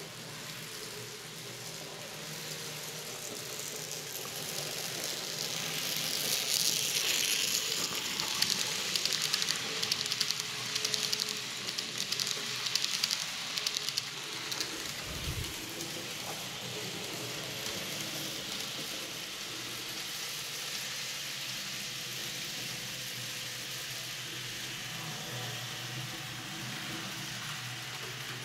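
N-scale model train, a BR 17 steam locomotive model with passenger coaches, rolling along the track with a fast, fine clicking of wheels on rails and a motor whir. It grows louder as it passes close, from about six to fourteen seconds in, with uneven surges, then runs on more quietly. The locomotive still runs jerkily after cleaning, which the owner puts down to a motor that needs taking apart. There is a brief low bump about fifteen seconds in.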